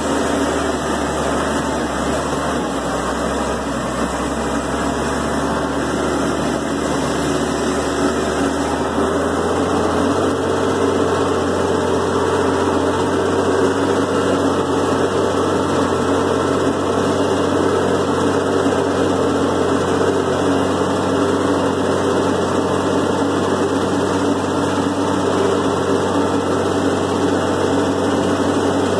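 Farm tractor engine running steadily under load, heard from inside the cab; the engine note rises about nine seconds in and holds there.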